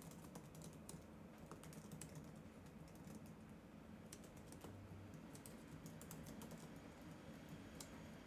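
Faint computer keyboard typing: a quick, irregular run of key clicks.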